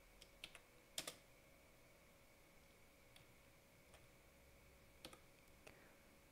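A few faint, scattered keystrokes on a computer keyboard, the loudest about a second in, over a faint steady hum.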